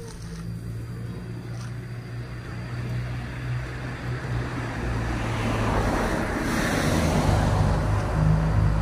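A motor running with a low hum, growing steadily louder, with a rushing hiss that builds toward the end.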